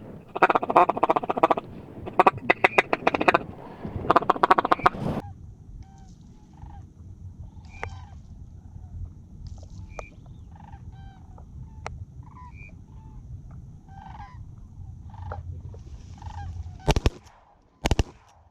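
Duck calls blown in three loud runs of rapid quacking pulses, then softer scattered calls as ducks work the decoys. Two shotgun shots near the end, about a second apart.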